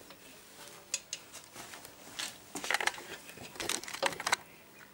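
Handling noise: rustling with scattered light clicks and clinks as hands work a rubber hose and loose parts on a motorcycle's front end, busiest from about two seconds in.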